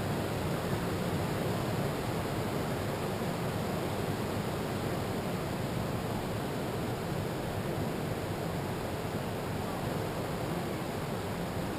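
Steady rushing noise of ocean surf breaking on a beach, mixed with wind, with no single wave standing out.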